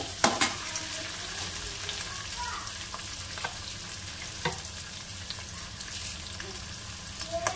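Onions, garlic, chillies and curry leaves sizzling in hot oil in a metal kadai as they fry toward golden brown. A metal spoon stirs them, scraping and clicking against the pan a few times.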